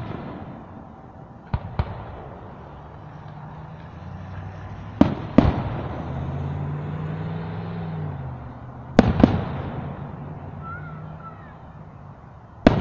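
Aerial firework shells bursting at a distance: sharp bangs, mostly in pairs about every four seconds, each echoing away, with the loudest coming near the end.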